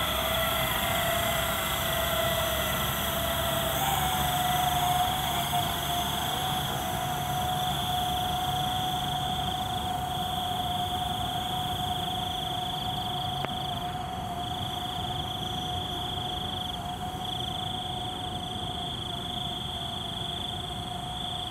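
Small quadcopter drone's propellers whining steadily as it climbs away, the pitch shifting in the first few seconds and then holding; the sound grows slowly fainter as it rises.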